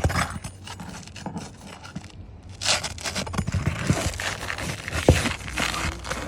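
Asphalt roof shingles scraping and tearing as a flat shingle-removal bar is worked under them to pry the shingle loose, with a couple of sharp knocks from the tool.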